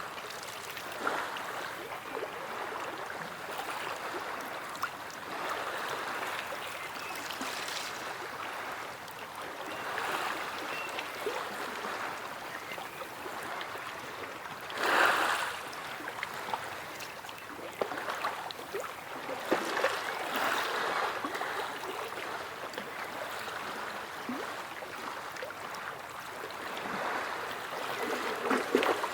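Sea waves washing and lapping at the shore with splashing and trickling water, the wash swelling and falling back every few seconds, loudest about halfway through.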